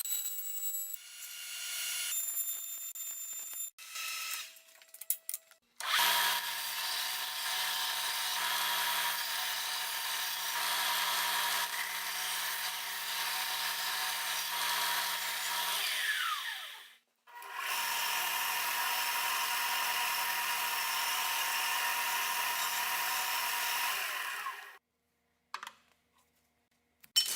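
Hand-held electric power tool running steadily in two long runs of about ten and seven seconds. At the end of the first run the motor winds down in pitch.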